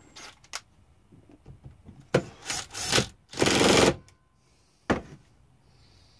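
Cordless drill driving screws into a submersible sewage pump's housing in four short bursts, the last and longest about half a second. A single sharp knock follows about a second later.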